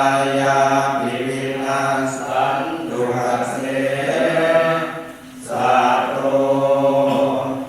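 Group recitation of Pali Buddhist chant in unison on long, held, near-level notes, with a brief pause for breath about five seconds in.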